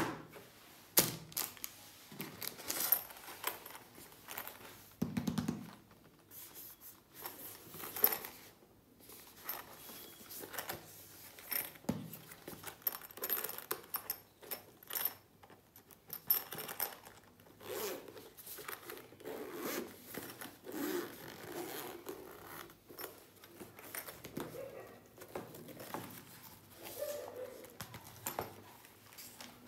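Handling of hard-shell unicorn pencil cases: taps, clicks and scrapes on the moulded cases, plastic packaging rustling, and a zipper being run open. The sharp clicks are the loudest sounds, coming every few seconds.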